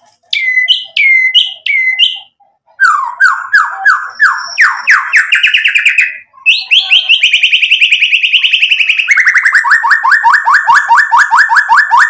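White-rumped shama singing: a few short down-slurred whistles, then long rapid-fire runs of repeated notes, first rising in pitch, then a fast trill, then a steady series of sharp notes at about eight a second, the rapid-fire 'tembakan' phrases of a bird in full song.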